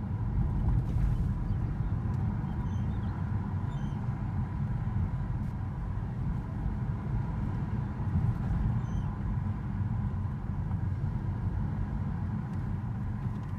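Vehicle driving steadily in third gear at about 33 km/h: heavy low rumble of engine and road, with a faint, steady high-pitched squeak running through it, the squeak that shows up at this speed.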